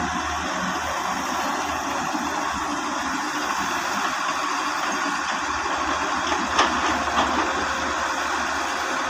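Diesel engine of a Solar 130 wheeled excavator running steadily as it digs soil, with a few short knocks about six and a half to seven and a half seconds in.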